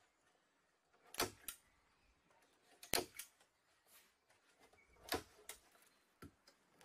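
A few sharp clicks and knocks, mostly in close pairs, from work on a vapor-barrier sheet and wooden panels over a faint background.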